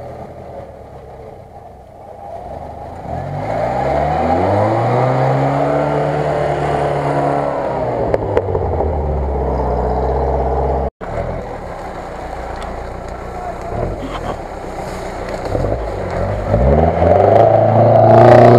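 UAZ-469 off-roader's engine revving up and held at high revs as it drives through deep mud. After a cut it revs again and finishes with a loud splash of water as it ploughs into a flooded track near the end.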